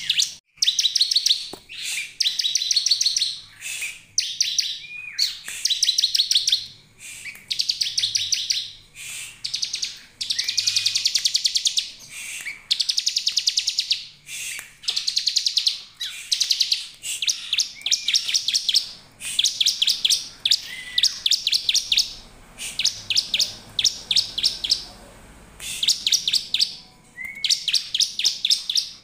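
Bar-winged prinia (ciblek) singing: a long run of short, rapid trills of repeated notes, phrase after phrase with brief gaps, some phrases opening with a short rising note.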